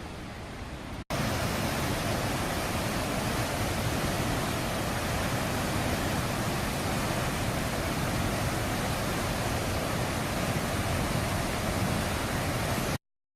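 Waterfall: the loud, steady rush of falling water. It comes in suddenly about a second in, after a quieter hiss, and cuts off abruptly near the end.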